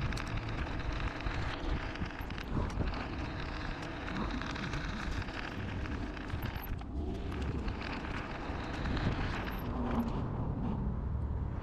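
Wind rushing over the microphone with tyre and traffic noise while riding a bicycle along a road. The wind thins briefly a couple of times.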